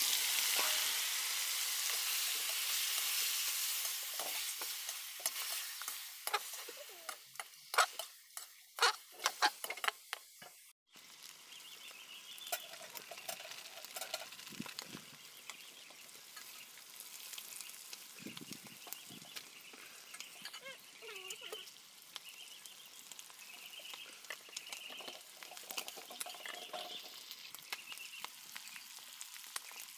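Pork pieces frying in hot oil in an iron wok: a loud sizzle that sets in sharply and fades over about five seconds, with clicks and scrapes of a metal slotted spoon stirring. After a sudden break about eleven seconds in, the frying goes on as a quieter steady sizzle.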